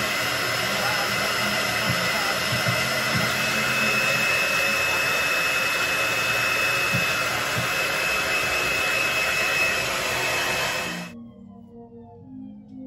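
Handheld hair dryer running steadily with a high whine, stopping abruptly about eleven seconds in.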